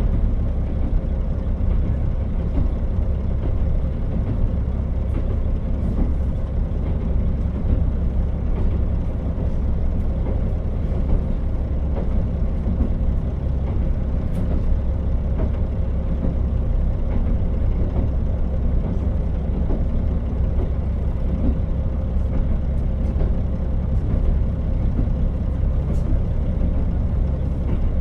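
KiHa 40 diesel railcar heard from inside the car: a steady low engine and running rumble with a constant hum, unchanging throughout, and a few faint clicks.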